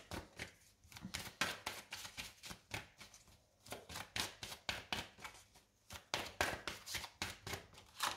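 A deck of Romance Angels oracle cards shuffled by hand: a run of quick, irregular soft slaps and clicks of card against card, with short pauses.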